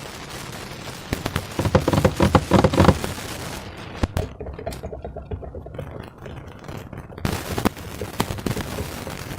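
Slime being worked by hand: sticky squishing with crackles and small pops, busiest and loudest about two to three seconds in.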